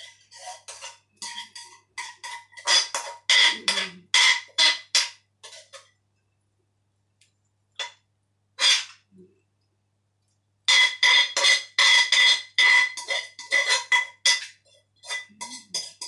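Metal spatula scraping and knocking against the inside of a steel wok in quick strokes, the wok ringing, as stir-fry is scraped out onto a plate. Two long runs of strokes with a pause of a few seconds in the middle, broken by two single knocks.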